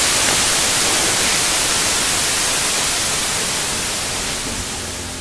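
Loud, even hiss of video static, like a TV tuned to no channel, slowly fading over the last couple of seconds.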